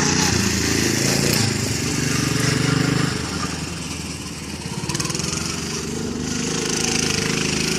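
Off-road go-kart's small engine running under a driver, the revs rising and falling: louder about two to three seconds in, easing off briefly around the middle, then picking up again.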